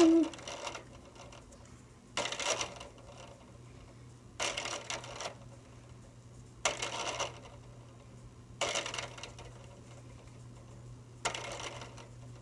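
Harbor Breeze Square 52 ceiling fan running on high: a steady motor hum, with a jingling metallic rattle that comes back about every two seconds.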